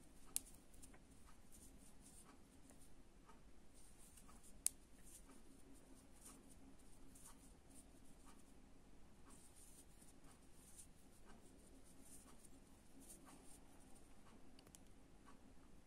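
Faint scratching and soft ticks of a crochet hook drawing cotton-acrylic yarn through double crochet stitches, close to silence, with two sharper clicks about half a second in and near five seconds.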